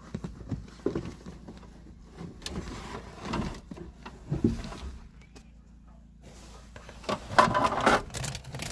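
Plastic interior trim panel being worked loose and lifted out: scattered clicks and knocks, busiest and loudest in the last second and a half.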